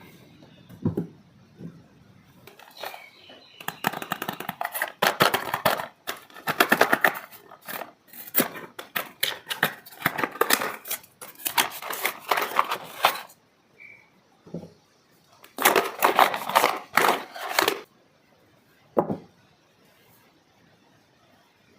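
Soap packaging being unwrapped by hand, crinkling and rustling in two long spells, with a few soft knocks in the quieter stretches.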